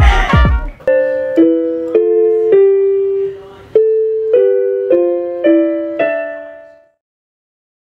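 Casio Casiotone electronic keyboard played in a piano voice: a slow, even series of two-note chords, about two a second, each ringing and fading, the last one dying away about seven seconds in. For the first second, background music with a beat is still playing before it cuts off.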